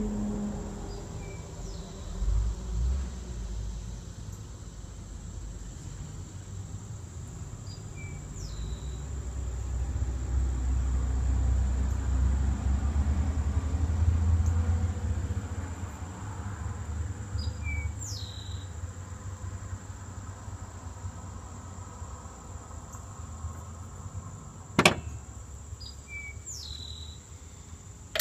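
Steady high-pitched insect drone with a few short, falling bird chirps over a low rumble that swells in the middle. A single sharp click sounds near the end.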